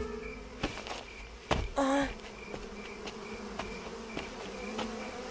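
Swarm of bees buzzing steadily, a cartoon sound effect. A few soft clicks and a brief pitched sound come about two seconds in.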